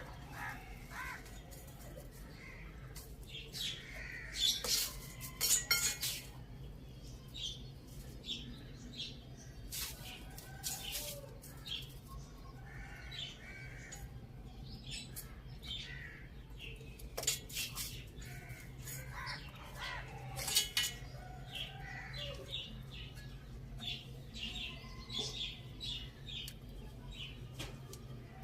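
Chickens making scattered soft, short calls, with sharp taps and clicks in between and a steady low hum underneath.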